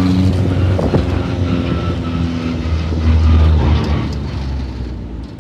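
Motor vehicle engine running as it drives along, a steady low hum that grows quieter near the end.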